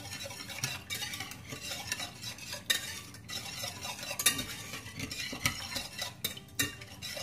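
Wire whisk stirring a thick onion sauce in a metal saucepan, working in flour to keep it from going lumpy. The wires scrape steadily and tap sharply and irregularly against the sides of the pan.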